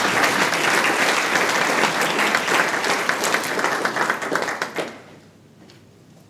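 Audience applauding, many hands clapping at once; the applause fades out about five seconds in.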